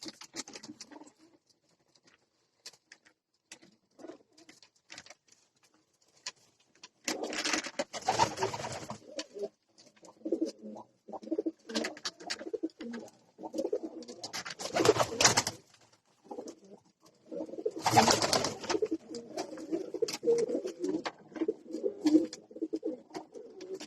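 Domestic pigeons cooing over and over in a small enclosed space. Three louder noisy bursts, each a second or two long, come about a third of the way in, past halfway, and again shortly after.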